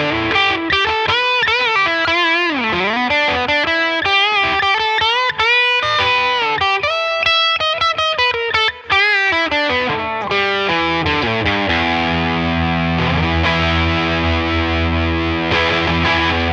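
SQOE SETL980 Tele-style electric guitar, with a humbucker and single-coil pickup set, played with distortion. It plays a lead line of single notes with string bends, slides and vibrato, then holds a sustained chord that rings out for the last few seconds.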